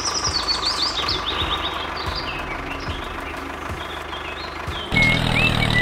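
Small engine of a walk-behind tractor running steadily with a low ticking pulse, while high descending chirps sound in the first couple of seconds. Near the end it switches suddenly to a louder, deeper engine idle.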